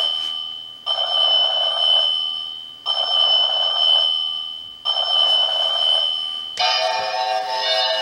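Seiko Pyxis NR445W alarm clock playing its synthesized bell alarm: an electronic ringing bell in bursts of about a second, repeating every two seconds, three times. About six and a half seconds in, it switches to its synthesized large-bell chime, with many ringing tones sounding together.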